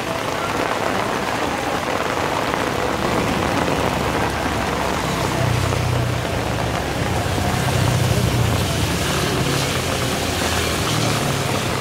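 Steady hiss of rain, with a car's engine passing close by: a low hum that comes in about halfway through and fades near the end.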